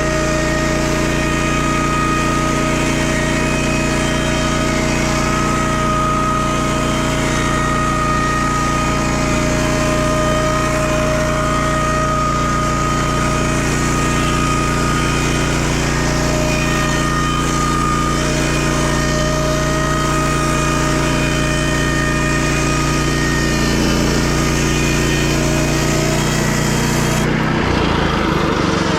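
Homemade sawmill's small engine running steadily, with a steady whine over it; the engine note changes about 27 seconds in.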